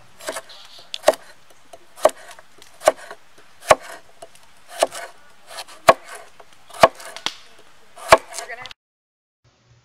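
Chef's knife slicing a carrot into rounds on a thick wooden log-slice cutting board: a sharp knock of the blade through the carrot onto the wood about once a second, eight main strokes with lighter taps between. The cutting stops abruptly near the end.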